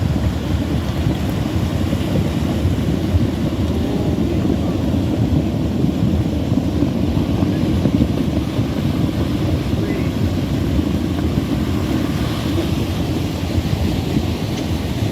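Flash flood of muddy water rushing down a creek bed: a steady, loud, low rumble of churning water.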